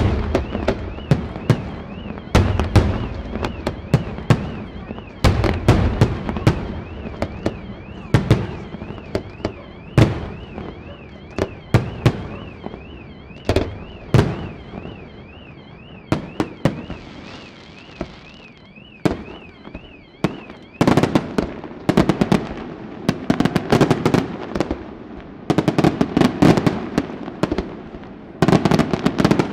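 Aerial firework shells bursting in loud, irregular bangs, one every second or so, thickening into rapid volleys of bangs and crackle from about twenty seconds in. A high warbling tone runs underneath until about twenty seconds in.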